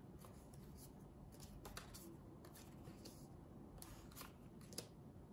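Near silence, with a few faint, scattered clicks and rustles of tarot cards being handled and laid down.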